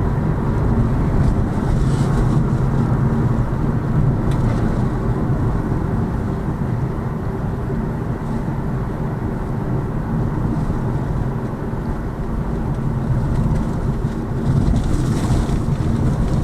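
Steady road and tyre noise heard from inside the cabin of a moving Lada Vesta Cross on Pirelli summer tyres, a continuous low rumble with a few faint ticks.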